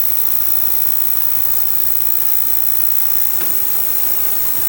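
Steady rushing noise with a faint low hum underneath, and a light click about three and a half seconds in.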